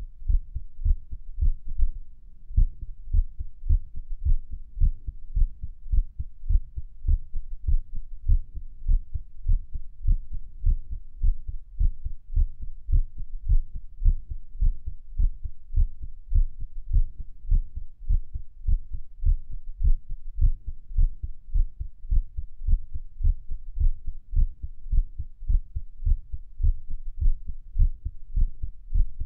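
Human heartbeat picked up on the chest at Erb's point: a steady train of dull, low lub-dub thumps with nothing higher-pitched above them. The uploader calls it an irregular heartbeat.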